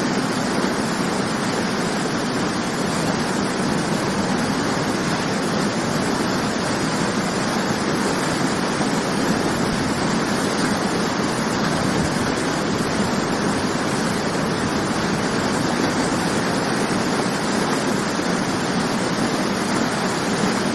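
Waterfall: water falling and splashing in a steady, dense rush with no change in level.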